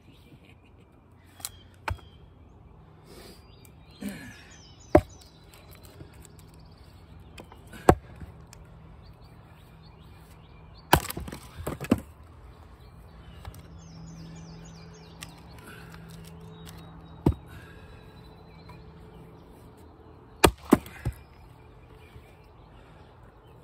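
Axe blows striking and splitting knotty, crotchy red maple firewood rounds: sharp chops every few seconds, with a pair about 11 seconds in and a quick run of three near the end. Birds chirp faintly in the background.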